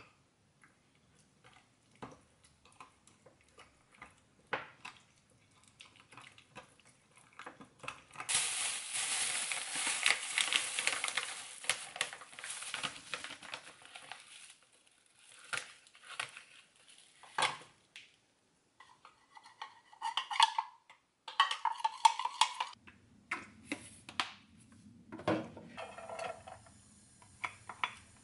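A spoon clinks and scrapes against glass bowls as a seasoning sauce is mixed, with a stretch of loud rustling about a third of the way in. After that comes clinking, as a spoon is stirred in a glass measuring cup, and near the end a steady low hum sets in.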